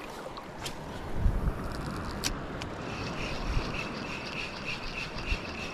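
Wind rumbling on the microphone over outdoor background noise, with a few light clicks. From about halfway through, a steady, pulsing high-pitched buzz comes in.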